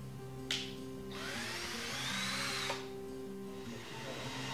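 Cordless drill boring a pilot hole for the roller-strap fastener into a wooden door. After a click, the motor speeds up and winds down over about a second and a half, then starts again near the end, over light background music.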